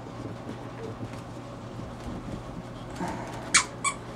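Yorkshire terrier puppies playing, with faint scuffling over a steady low hum, then two short high squeaks close together near the end.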